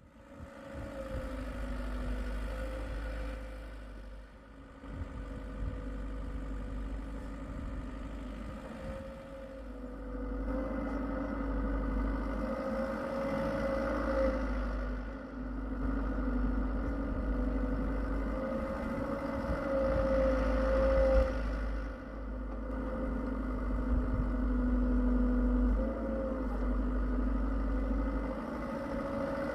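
Hitachi EX75UR excavator's diesel engine and hydraulics running under changing load while digging, the drone swelling and easing again and again as the arm and bucket work.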